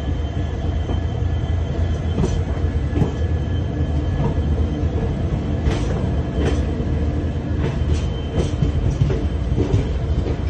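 Passenger train running along the track, heard from inside the coach. There is a steady low rumble of the wheels, with irregular sharp clicks and clanks as they pass over the rail.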